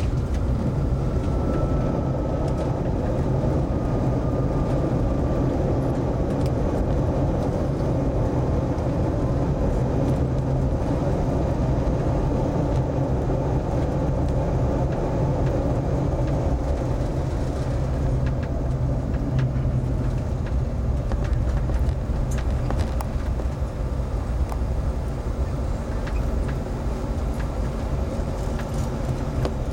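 Airliner cabin noise during the landing rollout: a steady engine and airflow rumble as the aircraft slows on the runway, with a faint whine that falls slightly in pitch over the first few seconds.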